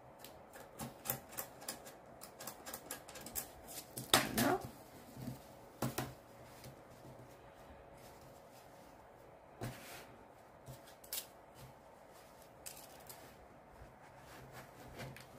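Wooden embroidery hoop clicking and knocking against a table while cross-stitch fabric is handled and smoothed: a run of quick light taps in the first few seconds, one louder knock about four seconds in, then scattered clicks and soft rustling of the cloth.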